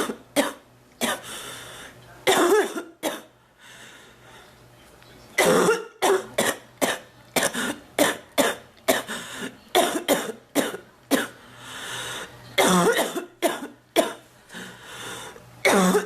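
A woman coughing over and over in rapid clusters of short, harsh coughs, with a brief quieter lull about three and a half seconds in before the coughing resumes.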